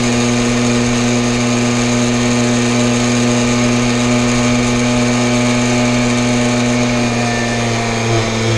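Jawa Babetta moped's 50 cc two-stroke single-cylinder engine running under way at a steady pitch, cruising at constant throttle, the note shifting slightly about seven seconds in.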